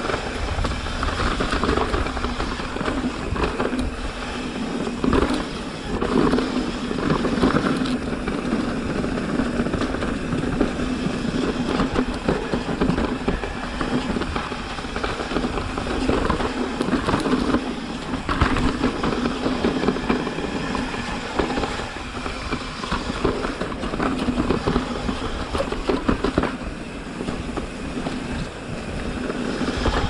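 Mountain bike rolling down a rough dirt trail: tyres rumbling over the ground and the bike rattling with frequent small knocks.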